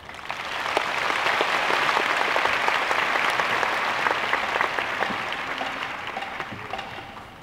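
Large audience applauding, swelling in quickly at the start, holding steady, then fading over the last couple of seconds.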